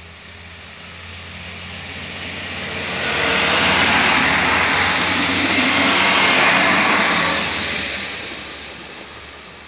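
Passenger multiple-unit train passing close by over a level crossing. The rumble and rush of wheels on the rails builds over about three seconds, holds loud for about four seconds as the carriages go past, then fades away.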